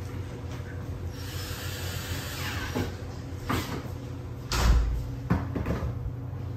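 Cordless drill driving a screw into a cabinet door for about a second and a half, then winding down. After it come a few knocks and a heavy thud about halfway through as the drill is set down on the countertop.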